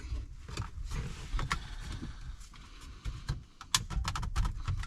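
Handling noise: irregular clicks, taps and light knocks of hard plastic parts being moved about, the sharpest click about three quarters of the way through, over a low rumble.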